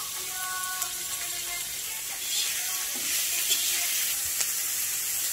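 Food sizzling in hot oil in a frying pan: a steady hiss that gets a little louder about two seconds in.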